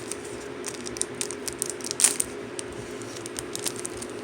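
Foil Pokémon booster pack wrapper crinkling and crackling as it is torn open and the cards are pulled out, a run of short sharp crackles with the loudest about two seconds in.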